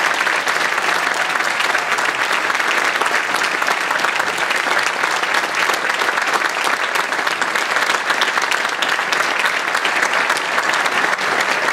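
A large group applauding: many hands clapping together into a dense, steady applause.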